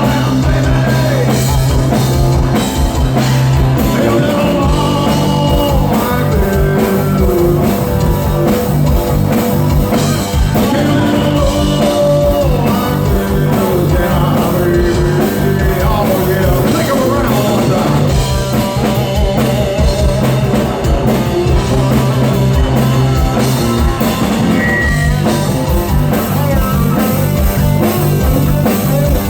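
Rock band playing a song: a singer over guitar, bass and a drum kit keeping a steady beat.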